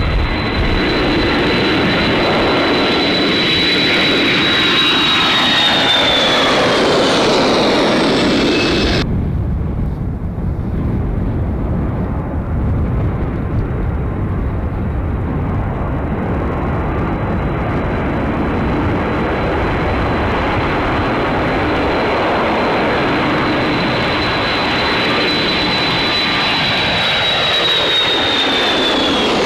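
KC-135R Stratotanker jet engines at takeoff power: loud, steady engine noise with a high whine that slides down in pitch as the jet passes and climbs away. An abrupt cut about nine seconds in switches to the next tanker's takeoff, whose whine holds steady and then falls again near the end.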